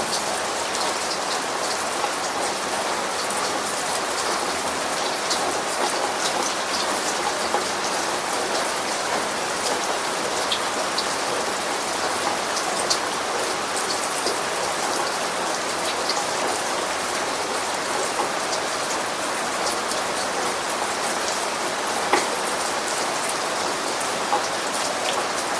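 Steady rain falling, an even hiss with many individual drops ticking on a surface, one drop a little louder about 22 seconds in.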